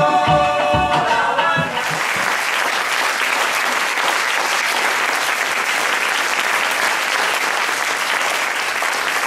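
Cuban dance music with a pulsing bass ends about two seconds in, giving way to steady audience applause.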